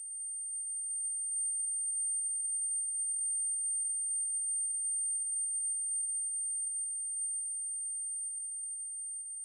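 A single high-pitched electronic sine tone held steady, played as a mosquito-repellent 'ultrasound' sound.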